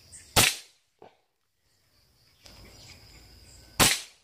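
Two shots from a PCP air rifle, each a sharp crack, about three and a half seconds apart, with a faint short knock about a second in.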